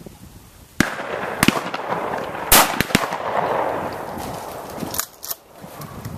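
A string of shotgun shots from several guns, about seven in all, spread irregularly over about four and a half seconds, the loudest about two and a half seconds in, as birds fly over the shooting stations.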